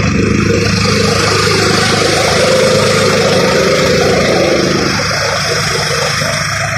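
Farmtrac 45 tractor's diesel engine running steadily, driving a three-blade, double-wheel chaff cutter that blows chopped straw out, with a steady low hum under a dense hiss. The sound eases a little about five seconds in.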